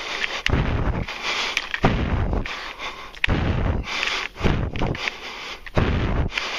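A person breathing hard from exertion, each breath blowing on the worn camera's microphone as a rough, rumbling burst, about one a second.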